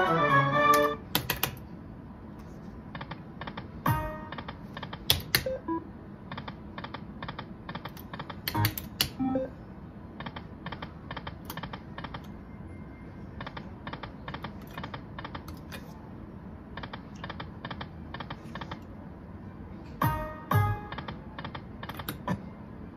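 Aristocrat Dragon Link Golden Century poker machine spinning its reels: a run of quick, evenly spaced electronic ticks, about five a second, pausing briefly between spins, with a few short chimes as the reels stop. A win tune is ending at the very start.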